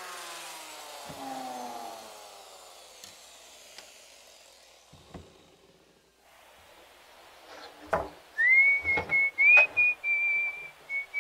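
A power tool's motor spinning down, its pitch falling over the first two seconds, followed by a few light knocks. From about eight seconds in, someone whistles a tune, with several sharp knocks of heavy timber being handled on a workbench.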